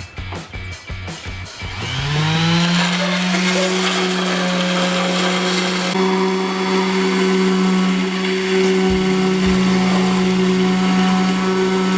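Power tool motor spinning up about two seconds in, its pitch rising quickly and then holding steady as it runs, cutting away part of the car's front end to clear the oil cooler.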